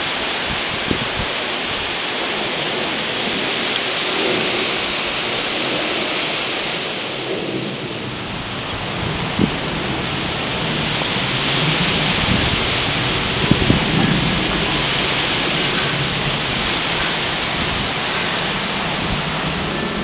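Loud, strong wind rushing through the leaves and branches of birch and pine trees, swelling and easing in gusts, with low rumbling buffets of wind on the microphone during the stronger gusts.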